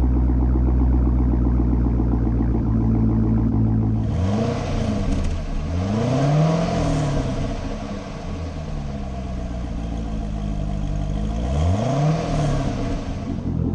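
C6 Corvette V8 idling with a deep, steady exhaust note, then revved about three times, the pitch climbing and falling back with each rev.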